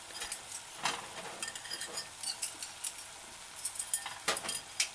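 Chicken sizzling in a stainless-steel saucepan with browning and soy sauce: a low steady hiss broken by scattered light clicks and pops, with a few louder ones about a second in and twice near the end.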